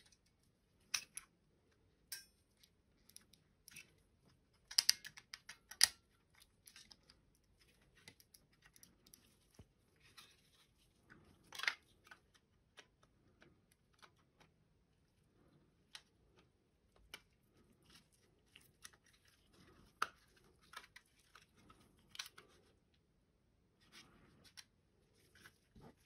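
Small plastic parts of a computer mouse being handled and fitted together: irregular clicks and taps, the loudest around five to six seconds in and again near twelve seconds.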